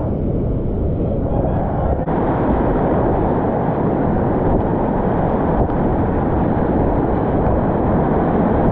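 Whitewater rapids rushing loudly around a kayak, a steady churning water noise that grows louder over the first couple of seconds as the boat enters the rapid.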